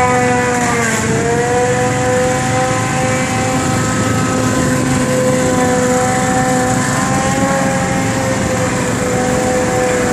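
Pressure washer's engine and pump running steadily with a high, even whine over a hiss. The pitch dips briefly about a second in, as if the machine took on load.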